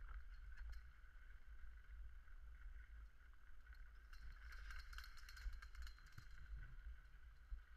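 Faint low rumble of wind and skis gliding over snow, picked up through a GoPro Hero 3 action camera, with a patch of crackly scraping about four to six seconds in.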